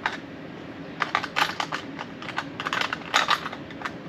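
Small metal screws clicking and rattling against each other and their container as they are picked through by hand, in several quick runs of light clicks.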